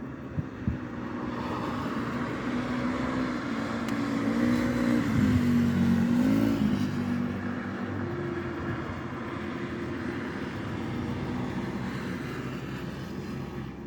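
A car passing by outside a window: its engine hum swells to its loudest about five to seven seconds in, then fades into a steady traffic hum. Two short clicks sound right at the start.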